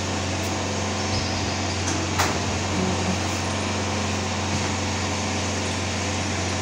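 Steady hum and whir of an air conditioner's outdoor unit, with a single sharp click about two seconds in.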